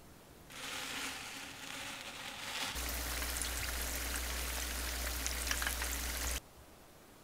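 Battered corn dogs deep-frying in hot oil, a dense sizzle full of small crackles. It grows louder a little under three seconds in and stops suddenly near the end.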